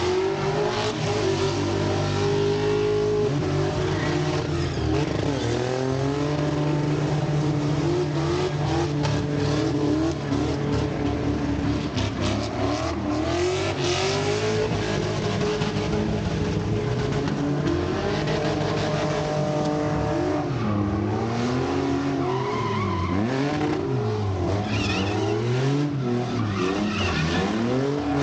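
Cars drifting: engines held at high revs with tyres squealing and screeching across the pavement. Later the revs swing up and down about once a second as the driver works the throttle through the slide.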